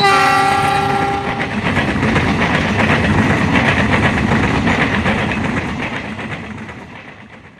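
Train passing at speed: its horn sounds for about the first second and a half, then the wheels clatter over the rail joints, and the sound fades away near the end.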